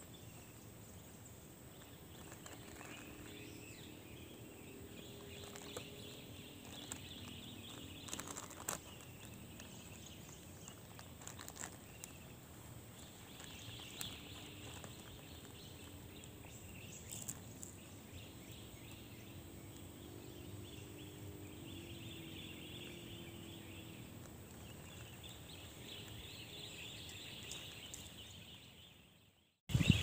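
Faint pine-forest ambience: a low steady hiss with distant animal calls and a few soft clicks and rustles. It drops out just before the end.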